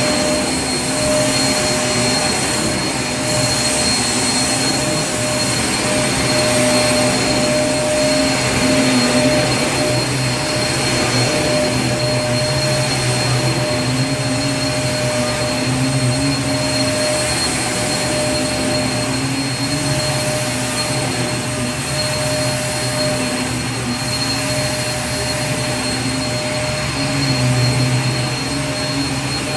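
Vacuum cleaner motor running steadily: a continuous airy roar with a steady hum and a high whine, unbroken throughout.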